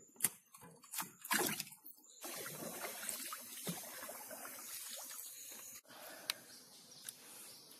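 A few short clicks and snips from pliers cutting the spines off a catfish. From about two seconds in comes a steady wash of water as a wooden boat is paddled, with water sloshing and trickling, quieter for the last couple of seconds.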